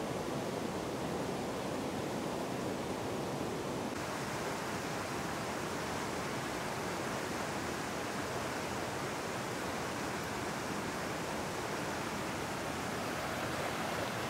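Steady rushing of a fast mountain creek running over rocks and small rapids, getting a little hissier about four seconds in.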